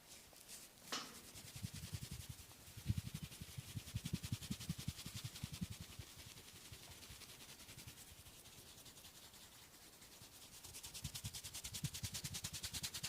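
Hands rubbing fast over bare skin during a back massage, several quick strokes a second with soft thuds of the palms, easing off in the middle and picking up again near the end.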